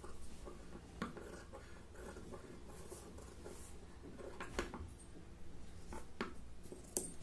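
Large tailor's shears cutting through cloth in short strokes: a faint snipping and rubbing, with a few sharp clicks as the blades close.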